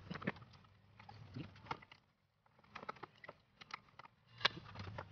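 Irregular clicks and light knocks of hard plastic, from hands working the plastic cover panel over the radiator support and its clips.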